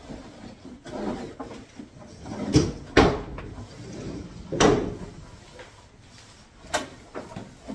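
Decor items such as a basket and plate being moved around on top of kitchen cabinets: a handful of knocks and clatters, the loudest about three seconds in and again about four and a half seconds in.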